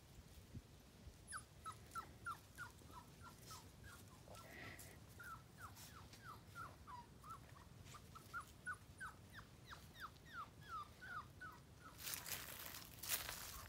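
Five-week-old Miniature American Shepherd puppy whining in a long run of short, falling whimpers, about two or three a second. Near the end a brief, louder rustling noise.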